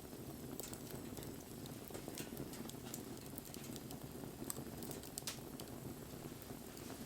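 Wood campfire burning: a steady low rush of flame with irregular sharp crackles and pops from the burning wood, a couple of louder pops about four and five seconds in.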